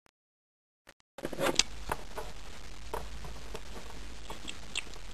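Almost nothing for about the first second, then a steady hiss with a low hum, broken by a few light taps and clicks of plastic toy figurines being handled and set down on a plastic playset floor.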